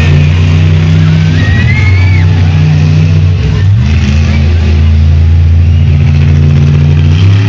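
Monster truck engine running very loud at a steady pitch, stepping up in pitch a little under four seconds in, with music over the arena's loudspeakers behind it.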